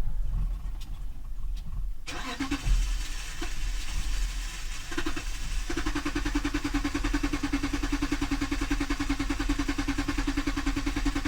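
A 2011 Dodge Durango's 5.7 Hemi V8 being cranked over by the starter in a hard start, settling into a steady even pulsing from about six seconds in. The starting trouble comes from a failed fuel pump relay in the TIPM.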